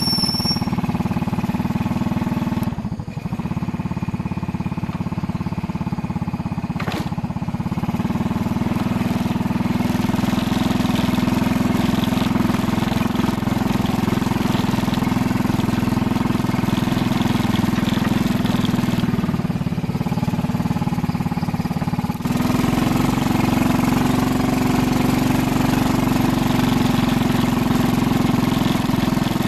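Two-wheel hand tractor's single-cylinder diesel engine running steadily as it drives the tractor along a field track. The sound dips briefly about three seconds in and gets louder again a little after twenty seconds.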